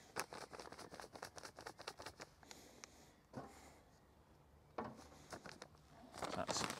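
Dry groundbait being shaken from a plastic bag into a plastic measuring jug: a faint patter of crumbs with crinkling of the bag. A single soft knock comes about three seconds in, and there is more rustling near the end.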